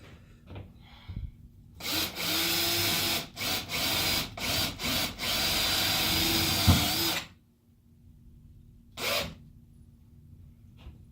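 Power drill driving Teks self-drilling screws through the subfloor into the bus floor, running in spurts of a few seconds with several brief stops. A single short burst follows about two seconds later.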